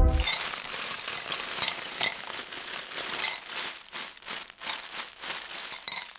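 Dense crackling with many small pops and clicks, loudest at the start and thinning out toward the end.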